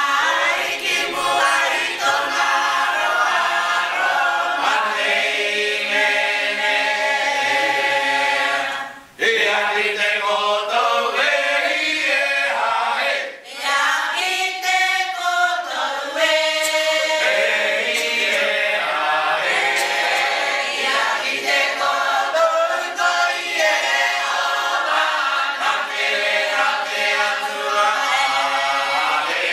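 Unaccompanied mixed choir of women and men singing an imene tuki, the Cook Islands style of hymn sung in several voice parts. The singing breaks off briefly twice, about nine and thirteen seconds in.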